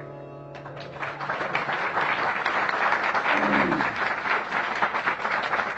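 A small audience breaks into applause about half a second in, dense clapping that continues, as the last held notes of the tanpura drone and voice die away. A single voice calls out briefly around the middle.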